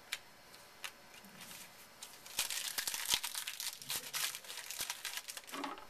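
Wrapper of a 2011 Upper Deck Goodwin Champions trading-card pack being torn open and crinkled by hand. A few light clicks come first, then dense crackling from about two seconds in until near the end.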